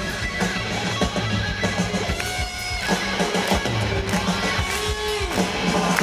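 Rock band playing live, electric guitar to the fore over bass and drums, at full volume in an instrumental stretch of the song.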